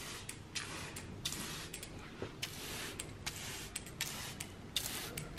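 A glass plant mister being pumped by hand, spraying water in repeated short hissing spritzes, about two a second.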